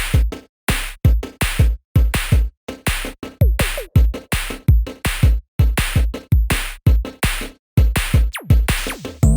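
Electronic background music with a steady drum-machine beat: punchy kick and percussion hits several times a second, with a couple of falling synth sweeps.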